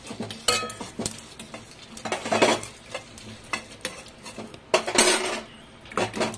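A metal spoon stirring and scraping dry-roasted whole spices (coriander seeds, cumin, peppercorns, dried red chillies) around a shallow metal pan, the seeds rattling in a few separate strokes. A louder metal clatter comes about five seconds in.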